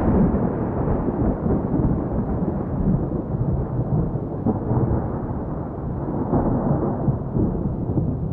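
A loud, continuous low rumble with an uneven, rolling texture and no distinct tones.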